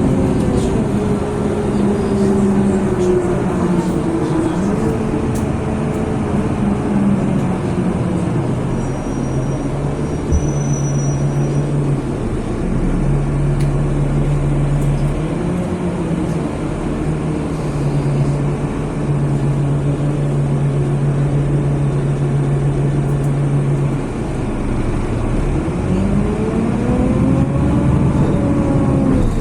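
A motor engine running steadily under a constant background rush, its pitch holding for several seconds at a time and then drifting up and down, with a slow rise and fall near the end.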